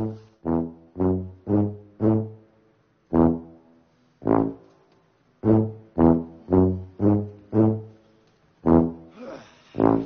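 Background music: a low brass instrument plays about a dozen short, separate notes in a slow, plodding tune, some in quick runs of three or four and others spaced by pauses.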